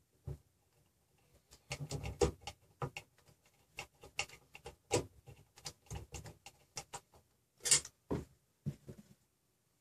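Screwdriver starting M3 bolts that fix a stepper motor to its mount: irregular small clicks, ticks and scrapes of metal and plastic parts being handled, with one sharper click near the end.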